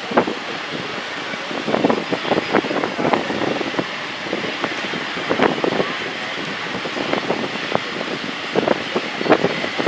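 Twin jet engines of a Boeing 767 airliner at takeoff power as it lifts off and climbs away: a steady roar with an uneven crackle running through it.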